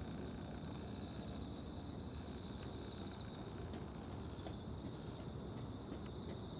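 Steady outdoor ambience: a low, even rumble with a thin, high, continuous insect trill over it.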